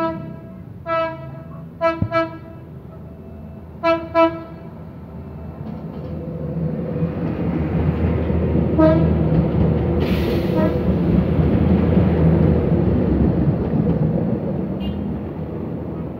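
Hyundai Rotem diesel multiple unit of the Philippine National Railways sounding its horn in short toots: one, another a second later, then two quick pairs. The train then passes close by, its engine and wheels on the rails building to a loud rumble, with a brief hiss about ten seconds in, and fading near the end.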